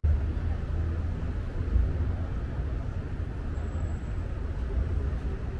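Low, steady rumble of city street traffic, with a faint high squeal near the middle.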